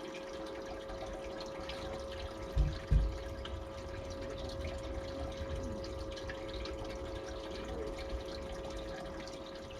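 Water trickling over a steady hum, like a small pump running. Two dull low thumps come about two and a half and three seconds in.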